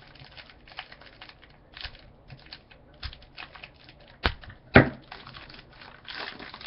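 A foil trading-card pack being torn open and its cards handled: light rustling and clicking, with a sharp tap about four seconds in and a louder snap just after.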